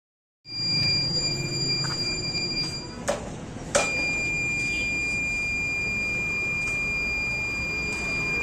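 Buzzer of a homemade 555-timer touch/vibration alarm sounding a steady high-pitched tone, over a low rumble. The tone cuts off about three seconds in, two sharp knocks follow, and the tone starts again and holds.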